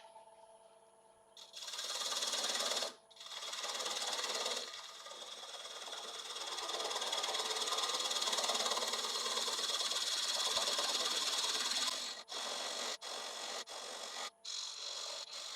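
Turning tool cutting into the foot of a wooden bowl spinning on a wood lathe, turning away the tenon. The cutting noise starts about a second and a half in, with a couple of short breaks. It runs steadily through the middle, then comes in short strokes near the end.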